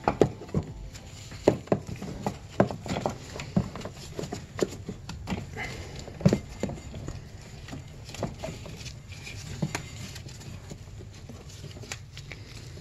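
Irregular clicks and knocks of a snowmobile carburetor being handled and worked into its rubber boots, busiest in the first half, over a low steady hum.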